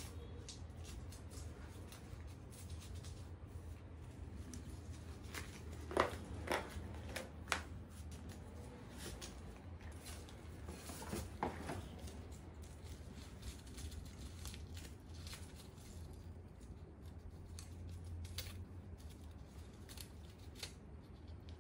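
Faint rustling, crinkling and tearing of crumpled A4 paper as a toy poodle noses through it and pulls it apart to get at hidden treats. There are a few louder crackles about a quarter of the way in and again around halfway, over a low steady hum.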